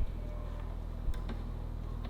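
A steady low hum with a short click repeating evenly, about once a second.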